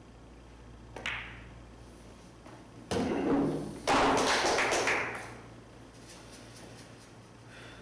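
Pool cue striking the cue ball with a sharp click about a second in, then about two seconds later a ball dropping into a pocket with a thud, followed by a rattling rumble for about a second as it runs through the table's ball-return channel.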